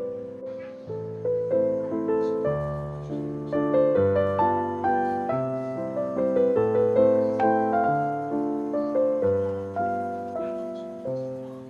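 Background piano music: a slow melody over sustained chords, each note struck and fading.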